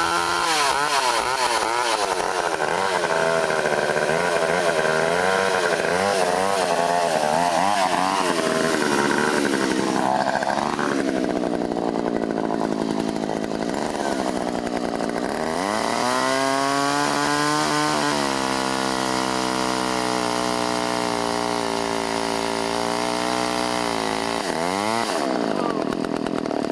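Two-stroke chainsaw running while cutting through a Christmas tree trunk, its engine speed rising and falling. It sags about ten seconds in, revs up sharply around sixteen seconds and holds high, then dips and picks up again near the end.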